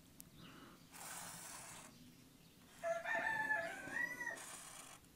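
A felt-tip marker scratching across paper in one stroke about a second in, then a rooster crowing once, a call of about a second and a half that rises and drops at the end.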